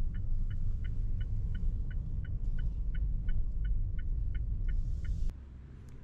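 A car's turn-signal indicator ticking at an even pace, about three ticks a second, over the low rumble of the moving car heard from inside the cabin. The ticking and the rumble cut off abruptly about five seconds in, leaving a quieter steady hush.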